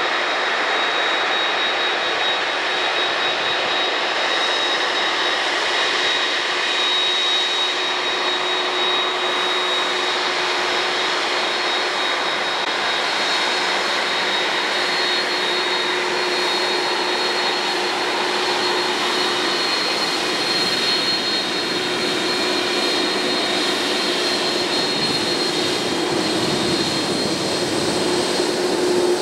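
McDonnell Douglas MD-11F freighter's jet engines running at low taxi power: a steady jet noise with a high, even whine, growing a little louder near the end as the aircraft taxis close by.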